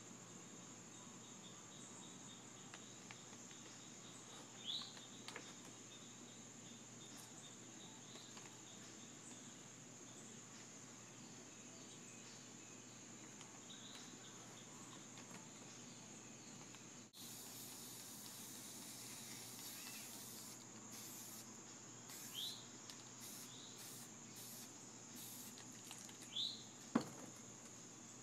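Faint, steady high-pitched insect-like drone with a few short rising chirps. About halfway in a stretch of hiss begins, then breaks into several short hissing bursts. A single sharp knock comes near the end.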